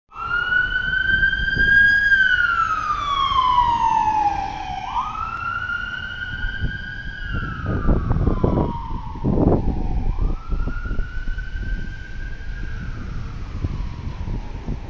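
Ambulance siren on wail: one tone sweeping slowly up and down, a full cycle about every five seconds, with a low rumble underneath.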